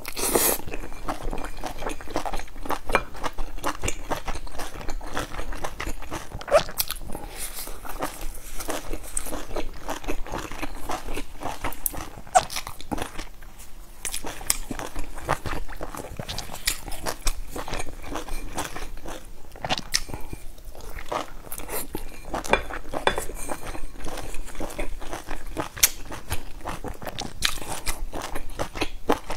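A person biting into and chewing large pan-fried dumplings with crisp browned bottoms: a steady run of crunching bites and wet chewing clicks.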